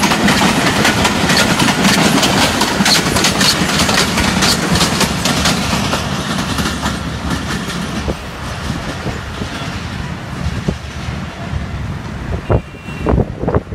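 Passenger coaches rolling past at speed, their wheels clattering over rail joints in a rapid run of clicks that fades as the train draws away. Near the end, wind buffets the microphone.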